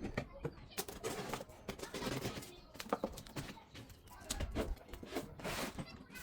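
A package being opened by hand: irregular scraping, tearing and rustling of packaging, with a longer rip about five and a half seconds in.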